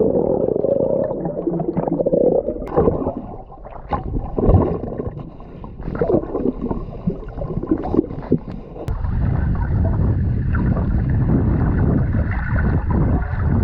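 Underwater sound while a boat's hull is scraped clean: muffled gurgling and bubbling with short knocks and scrapes. About nine seconds in it changes to a steadier rushing noise.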